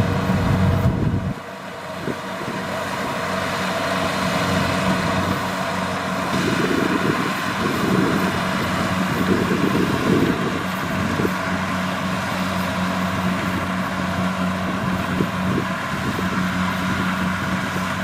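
Kubota DC-70 Plus combine harvester running as it harvests rice: a steady diesel engine drone with many steady whining tones from the machinery. The low engine hum drops away about a second in and the sound dips briefly, then builds back up and holds steady.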